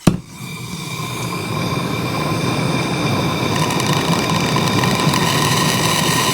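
Gas blowtorch flame playing on a water-filled copper pipe joint: a click at the start, then the torch's steady hiss builds over about two seconds, with the trapped water crackling as it heats toward boiling, the sign that the joint is too wet to solder.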